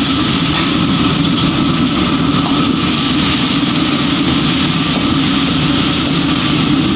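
A steady, unbroken mechanical drone with a strong low hum, without change or separate events.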